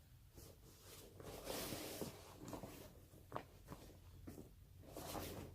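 Faint rustling and handling of a fabric travel bag as its second compartment is opened, with soft swishes of cloth and a few small clicks.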